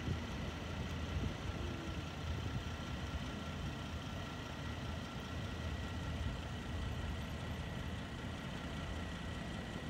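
Steady low engine rumble, with a faint steady high whine over it.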